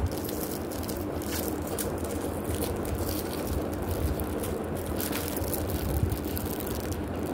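Plastic packaging crinkling in short bursts as hands handle and pull at wrapped decoration packets, over a steady low background hum.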